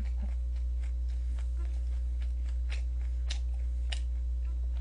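Steady low hum with a few faint, scattered clicks.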